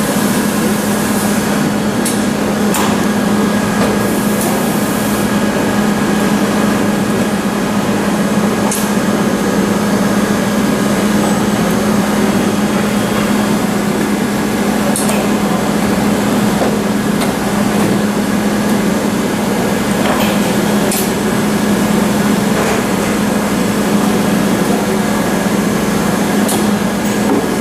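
Kekeisen UBF 3000/15 bed milling machine running under power with a steady, constant hum, with a few faint clicks over it.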